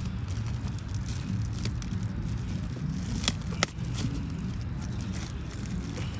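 Intake parts and packaging being handled: light crackling and scraping, with two sharp clicks a little past halfway, over a steady low rumble.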